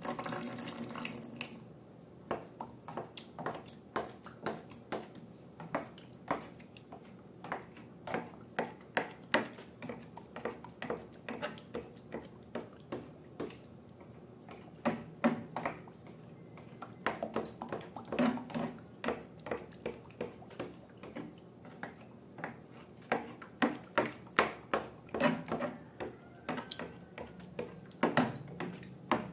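Slime being squeezed and worked by hand, making wet, sticky clicks and pops a few times a second, irregular, with louder clusters now and then.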